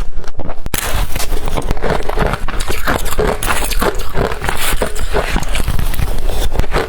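Close-miked crunching of blender-crushed ice being bitten and chewed, a dense run of irregular crunches with a momentary break under a second in.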